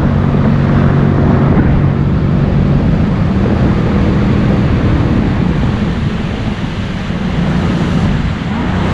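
Jet ski engine running at speed, a steady low hum under the rush of water against the hull and wind on the microphone.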